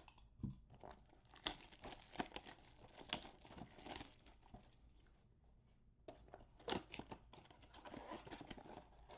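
A cardboard blaster box of baseball cards being torn open and its wrapped card packs pulled out and handled: irregular crinkling and tearing, with a short lull about halfway through.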